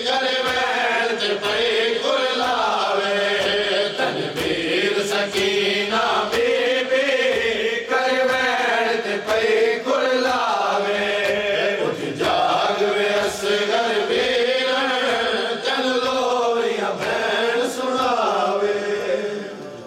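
Men chanting a noha in unison behind a lead voice, with a steady rhythm of palm slaps from matam, the mourners beating their chests in time. The chant breaks off near the end.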